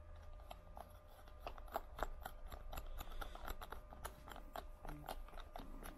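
Nut driver tightening a small nylock wheel nut onto an RC truck's axle: faint, irregular metal clicks and scrapes, several a second.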